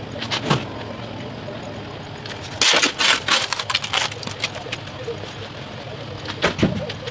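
Shovel crunching and scraping into dirt: a short crunch near the start, a loud stretch of gritty scraping in the middle lasting over a second, and one more crunch near the end.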